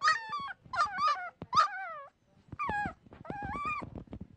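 Injured puppy crying out in pain: about six high-pitched whimpering cries, several falling in pitch, the last one the longest. She has a skull and nasal fracture and is badly chilled.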